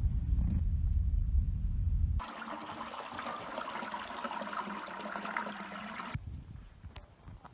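A low rumble for about two seconds, then spring water gushing and splashing for about four seconds, then the low rumble again.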